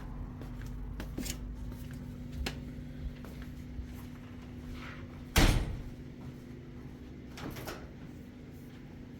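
Scattered light knocks and clicks with one loud bang about five seconds in, over a steady low hum.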